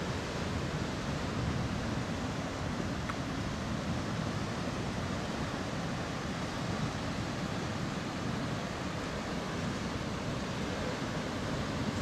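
Steady rush of choppy, moving water, with some wind noise on the microphone.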